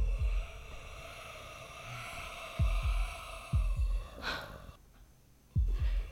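A heartbeat sound effect: low double thumps, lub-dub, coming every one to two seconds over a held eerie drone.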